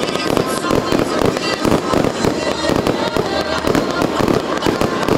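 Aerial fireworks launching and bursting in a rapid, unbroken stream of bangs and crackles, with music playing along underneath.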